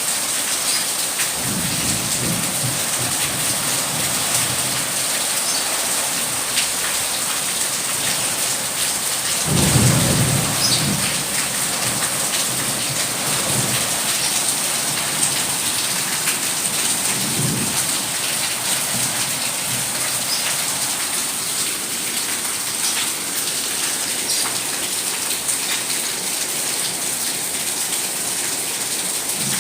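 Steady heavy rain falling, with low thunder rumbling three times, loudest about ten seconds in.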